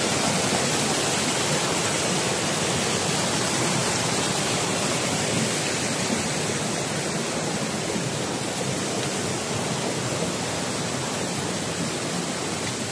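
Rocky mountain stream rushing over boulders and small cascades: a steady rush of water that eases slightly toward the end.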